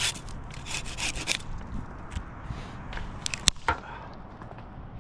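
Rubbing and scraping against the bark of a dawn redwood trunk as a climber shifts in the tree, with a cluster of sharp clicks a little past the middle.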